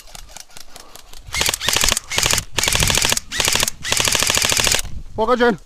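Airsoft rifle firing several full-auto bursts of rapid clicks, after a second of fainter clicking.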